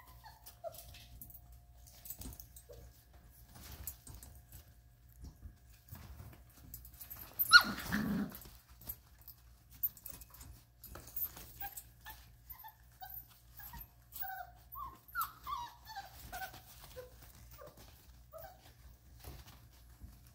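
Vizsla puppies, about a month old, whimpering and yipping in many short high calls that fall in pitch, with one louder, longer call about seven and a half seconds in. Light scuffling of paws on the puppy pads goes on throughout.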